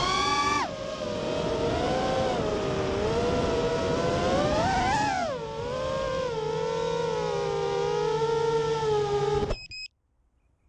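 Racing quadcopter's brushless motors and propellers whining, the pitch rising and falling with the throttle. The whine cuts off suddenly about nine and a half seconds in as the quad lands and its motors stop.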